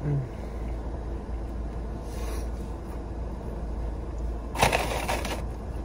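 Steady low rumble heard inside a car, with a short, louder scraping or rustling noise about four and a half seconds in.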